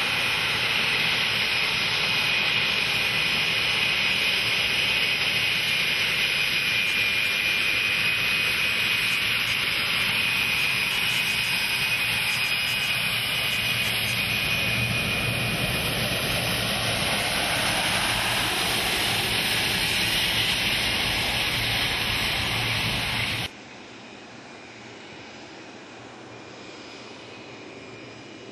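Jet engines of a Boeing 747 flying test bed, one of them a Rolls-Royce Trent 1000 turbofan, running loud and steady on the ground with a high fan whine. A tone slowly rises in pitch in the middle. About 23 seconds in the sound drops abruptly to a much quieter, more distant jet engine noise.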